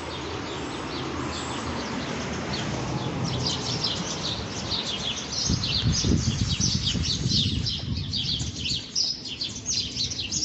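Small birds chirping in quick, busy succession, many short high calls overlapping, starting about three seconds in over a steady hiss of background noise.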